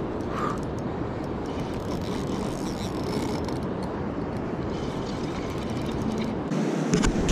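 Spinning reel being cranked by hand, its gears giving a soft whir and faint ticking over a steady rush of wind and river water, with a couple of knocks near the end.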